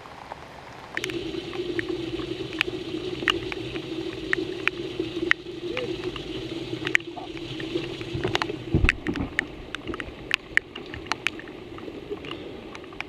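Bow-mounted electric trolling motor humming in a steady tone, starting about a second in and dropping away near the end, while raindrops tick irregularly on the camera housing. A single low thump comes about two-thirds of the way through.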